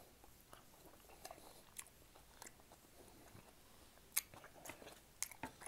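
Faint chewing and mouth noises of a person eating, with scattered small clicks, the sharpest about four seconds in.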